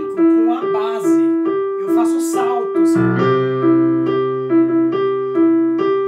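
Digital piano playing a repeating two-note minor-key figure that alternates steadily like a clock's tick-tock. Low bass notes come in and are held from about halfway through.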